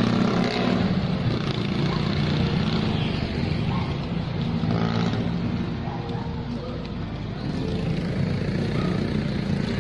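A motor vehicle's engine running with a steady low hum, a little louder at the start and easing off past the middle.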